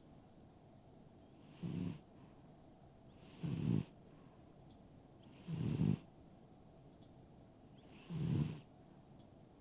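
A sleeping pet snoring: four short snores, each under half a second, about two and a half seconds apart.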